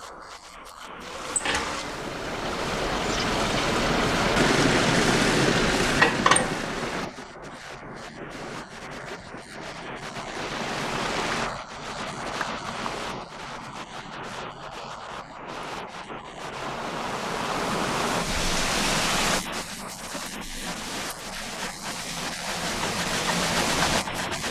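Rushing water that swells up and dies away twice, with a couple of sharp knocks in the first surge.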